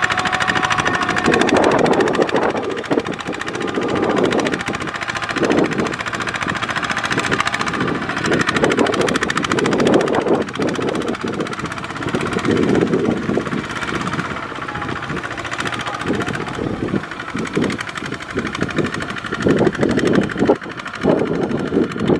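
Two-wheel walking tractor's single-cylinder diesel engine chugging under load, pulling a trailer of rice sacks through mud. The engine note swells and dips every second or two.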